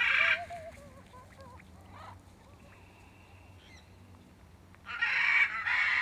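Shamrock macaw squawking: one loud, harsh squawk at the start, then two more back to back from about five seconds in.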